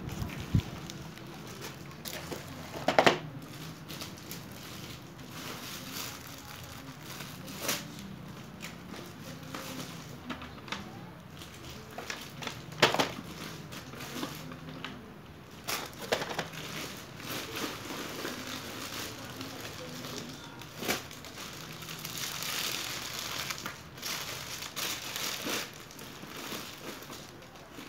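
Plastic bags and clear plastic wrapping rustling and crinkling as they are handled, with scattered sharp crackles and a spell of denser crinkling near the end.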